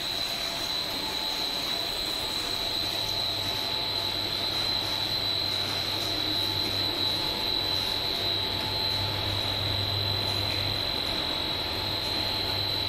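Plastic net extrusion line running: a steady machine drone with a constant high whine and a low hum underneath.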